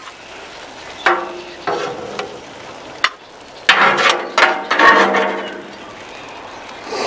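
Metal spatulas scraping and clinking on the steel griddle top as chicken, peppers and mushrooms are scooped up, in three bursts of scrapes, the loudest and longest about four to five seconds in. Food sizzles faintly on the griddle in between.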